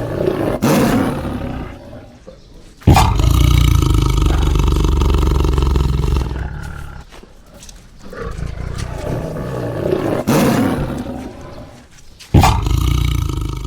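Tiger roaring: a series of long, deep roars, with loud ones starting abruptly about three seconds in and again near the end.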